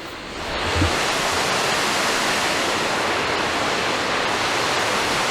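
Steady, even rush of water from a waterfall, which comes in about half a second in.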